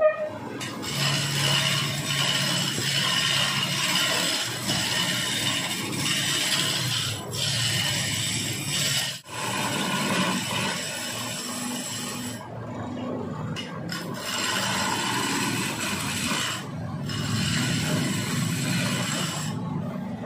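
A hand-held gouge cutting into a long log spinning on a wood lathe, making a continuous scraping, rasping sound over a low steady hum. The scraping drops away briefly a few times in the second half.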